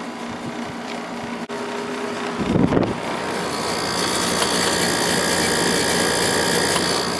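Samsung 6,300 BTU window air conditioner running on low, its compressor and fan giving a steady hum and whoosh. There is a brief bump about two and a half seconds in, after which a steady high whine comes through more strongly.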